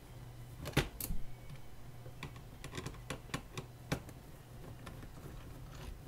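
Screwdriver clicking and scraping on the screws holding the tape-deck audio circuit board of a ZX Spectrum +2, as the board is unscrewed. It is a run of scattered small clicks, the loudest about a second in, thinning out after about four seconds.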